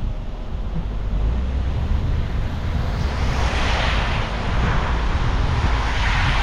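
Wind buffeting the microphone as a steady low rumble, with a rushing hiss that swells up twice, about halfway through and again near the end.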